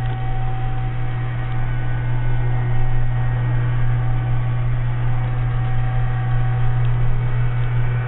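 Motorized TV lift raising a flat-screen TV out of a cabinet at the foot of a bed: a steady electric motor hum.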